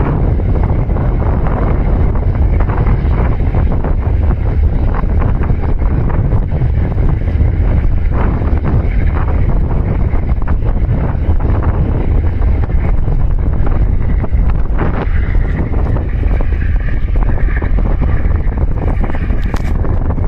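Strong wind buffeting the microphone: a loud, steady low rumble with a rushing hiss over it.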